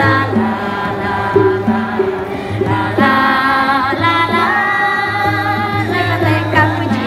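A small group of men and women singing a song together over instrumental accompaniment with a steady low drone and a moving bass line.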